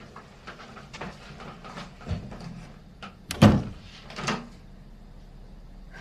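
A door being handled: scattered light clicks and knocks, then a loud knock with a falling scrape about three and a half seconds in and a smaller knock just under a second later.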